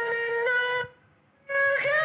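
Music played through a homemade two-transistor TIP41 mini amplifier and its speaker. A steady held note with overtones stops a little under a second in, there is about half a second of near silence, and then the next piece of music starts.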